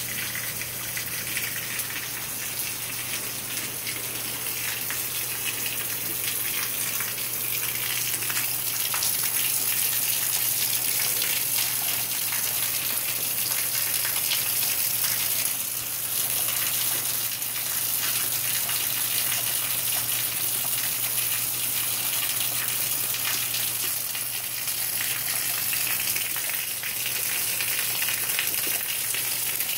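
Heavy rain falling steadily, with runoff pouring off the porch roof edge and splashing onto the concrete.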